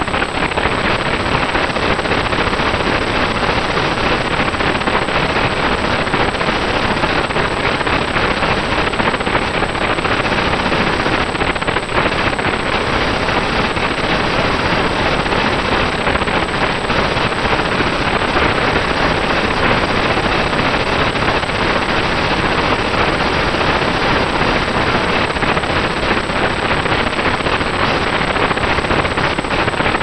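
Harsh, steady, loud noise from a Runcam 2 action camera's built-in microphone while it flies on a drone, with a faint steady tone underneath. The noise drowns out the motors and propellers, and the owner wonders whether it is a hardware fault or something a firmware update could fix.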